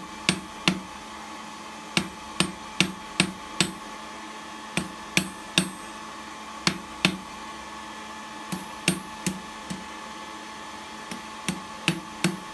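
Hand hammer striking red-hot file steel on a heavy steel-block anvil: about twenty sharp blows in short runs of two to five, about two or three a second, with brief pauses between runs. This is hot forging to square the end of the bar. A faint steady hum runs underneath.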